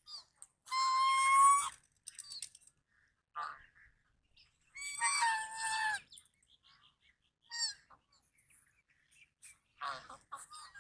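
Goose honking: two long, loud honks, one about a second in and another about five seconds in, with a few short, fainter calls between them and near the end.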